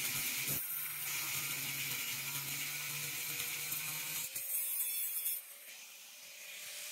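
Angle grinder with an abrasive cut-off disc cutting through ribbed steel rebar, a steady high hiss and whine of the disc grinding into the steel. The cutting noise drops away about five seconds in.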